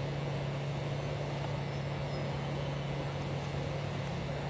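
A steady low mechanical hum over a constant background of noise.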